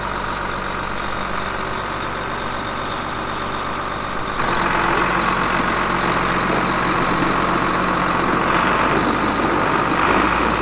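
John Deere 8640 tractor's six-cylinder diesel engine running steadily, getting louder about four seconds in as the tractor moves off.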